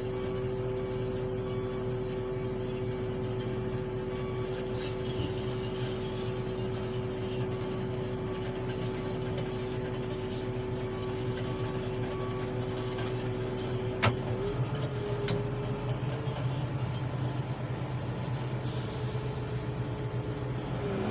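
Heavy diesel trucks and earthmoving machinery running steadily, a continuous drone with a steady whine over it. Two sharp clicks come about fourteen and fifteen seconds in, and the whine shifts in pitch briefly just after them.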